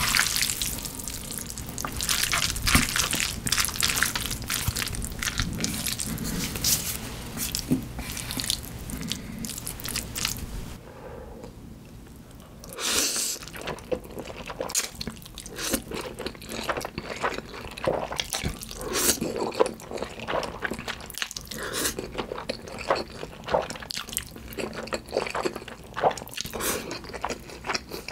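Close-miked eating of black-bean instant noodles: sticky noodles worked with chopsticks, then slurped about thirteen seconds in, followed by wet chewing and mouth smacks.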